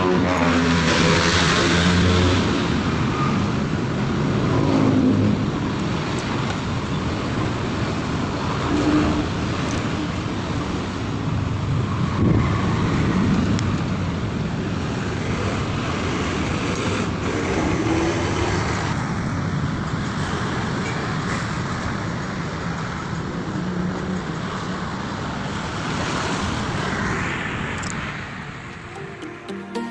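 Road traffic noise: vehicle engines and tyres passing, steady throughout, with engine hum strongest in the first few seconds.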